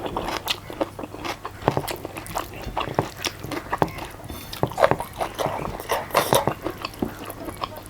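A person chewing and biting food close to the microphone: an irregular run of wet mouth clicks and smacks.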